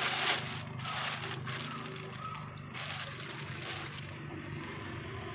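Thin plastic bag crinkling, then water sloshing and gurgling as a bag of catfish fry is opened and tipped into a tarpaulin pond, over a steady low hum.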